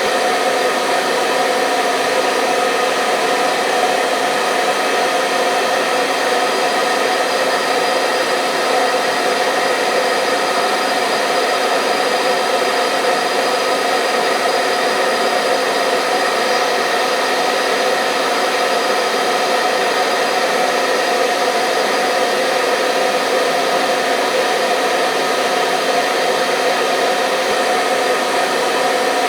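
Hair dryer running steadily: a constant rush of air with a steady motor whine in it, unchanging throughout.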